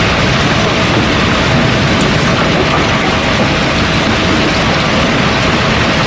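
River cobblestones pouring steadily down through the discharge opening in a barge's hold floor: a loud, continuous rattling rush of rock tumbling on rock, with a faint steady tone underneath.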